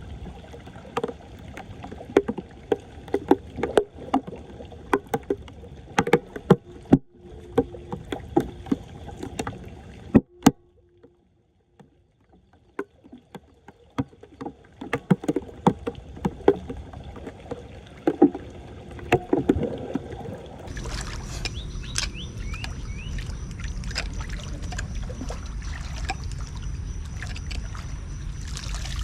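Water splashing and sloshing with frequent sharp knocks, typical of working through floodwater at a clogged street drain. About twenty seconds in it gives way to a steady rushing noise with a low rumble.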